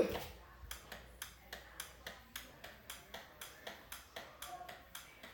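Faint, evenly spaced clicking, about two and a half clicks a second.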